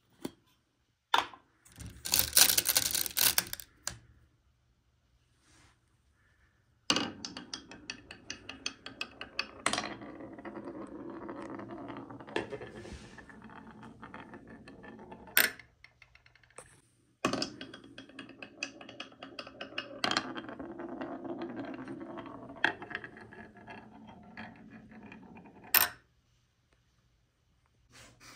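Glass marbles clink and rattle in a glass jar as they are handled. Then, twice, a glass marble rolls down a carved wooden wave slope for about nine seconds, rumbling and clicking over the curves, and each run ends with one sharp click as it drops into a small die-cast metal toy truck.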